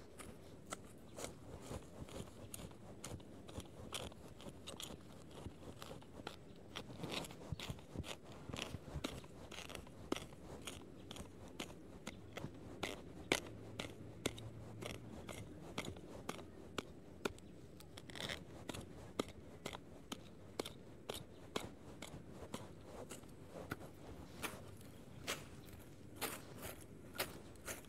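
A hand sickle cutting and scraping at grass and soil: a run of short crunching strokes, coming in a more even rhythm of about two a second near the end.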